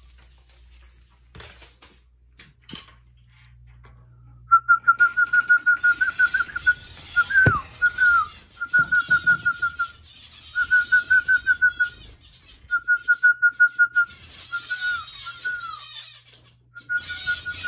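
A high whistled trill of rapid notes, about eight a second, repeated in bursts of one to two seconds from about four seconds in, some ending in a falling note. A flock of zebra finches answers with a dense chorus of calls that swells near the end.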